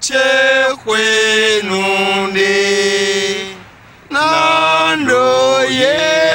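Unaccompanied chanting: long held sung notes in phrases of about a second or two, the pitch stepping down through the first long phrase, a brief break about three and a half seconds in, then shorter phrases that glide up.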